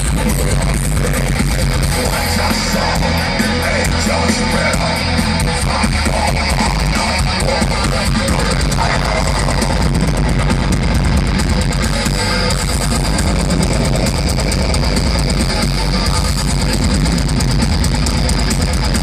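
Melodic death metal band playing live at full volume, with distorted electric guitars, in a poor-quality audience recording.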